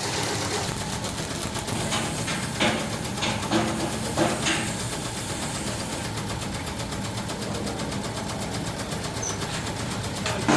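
Factory machinery running steadily with a fast, fine rattle. A few sharp metallic clicks and knocks come between about two and four and a half seconds in, over a high whine that stops about six seconds in.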